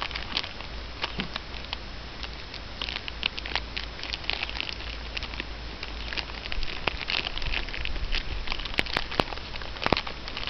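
Dry crackling and rustling with many small clicks and a few sharper clicks near the end, over a steady low rumble.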